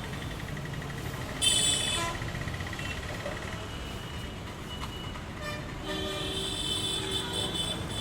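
Busy Indian street traffic: a steady rumble of engines and tyres with vehicle horns honking over it, one short loud blast about a second and a half in and a longer horn from about six seconds to near the end, and a rapid high pulsing beep in the first few seconds.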